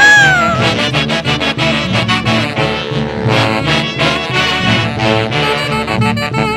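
An Andean orquesta típica playing a Santiago festival dance tune, a group of wind instruments carrying the melody over a steady beat.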